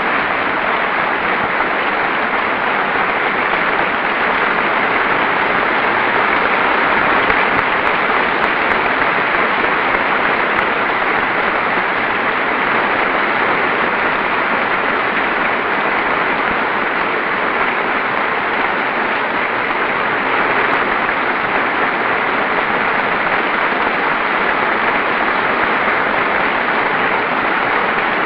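A large audience applauding steadily without a break.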